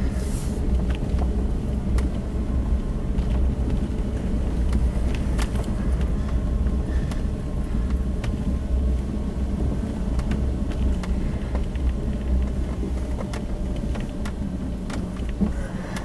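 A vehicle driving slowly, heard from inside the cab: a steady low engine and road rumble with scattered light clicks and knocks.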